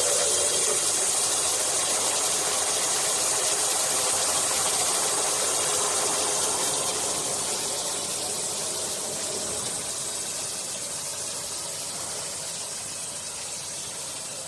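Single-spindle H-beam drilling machine running, giving a steady hiss that slowly fades away.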